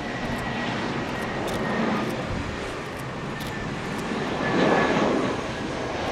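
Airbus A320-214's CFM56 jet engines at low landing thrust as the airliner flies low over the runway in its flare, with a thin high engine whine over the steady rush. The noise swells to its loudest about three-quarters of the way through.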